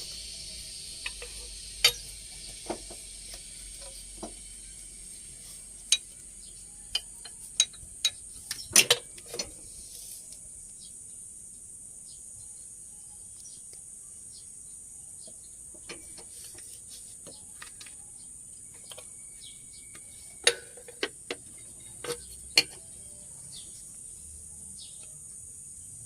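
Hand tools clicking and knocking on metal as the drive belt tension is adjusted and its bolts are tightened. The sharp clicks come in scattered groups, most of them about halfway through and near the end.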